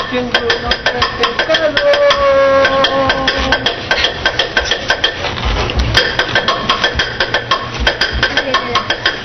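Quick repeated hammer blows, several a second, over background music with long held notes.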